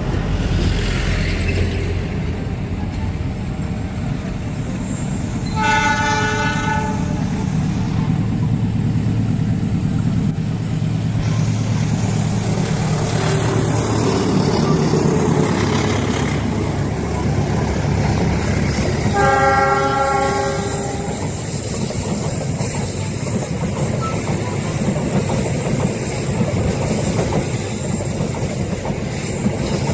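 A train running past on the rails with a steady rumble and wheel clatter, sounding two horn blasts of about a second and a half each, one about six seconds in and another about nineteen seconds in.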